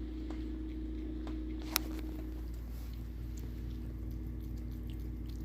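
A cat eating from its bowl: faint chewing and small clicks, with one sharper click a little under two seconds in, over a steady low hum.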